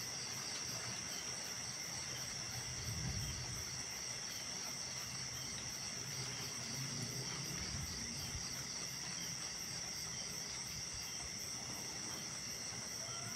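Night insect chorus: a steady, high continuous trilling with a faster regular pulsing above it. Faint low rumbles come and go about three and seven to eight seconds in.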